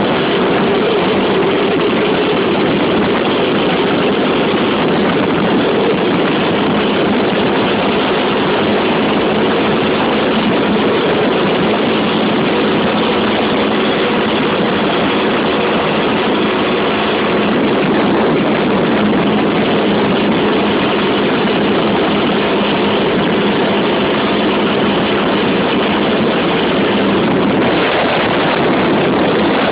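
Honda XR 250 Tornado's single-cylinder four-stroke engine running steadily while riding, under heavy wind rush over the microphone; the engine note shifts near the end.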